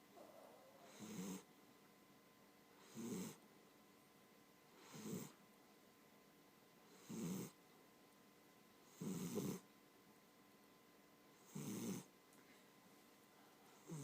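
A sleeping pet snoring, with one short snore about every two seconds, seven in all.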